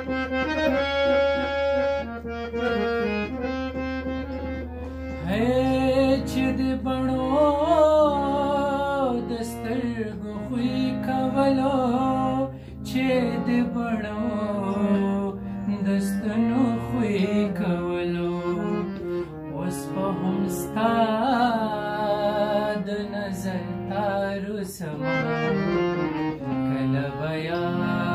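Harmonium playing a melody on its own for the first few seconds, then a man singing long, gliding, ornamented phrases over the harmonium.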